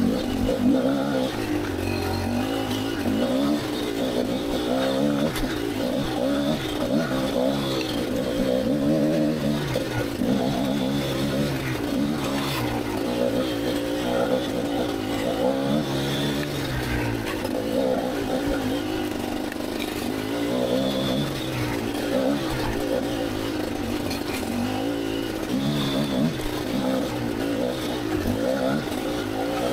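Kamax KMX 250 two-stroke dirt bike engine being ridden on a trail, its revs rising and falling constantly with the throttle.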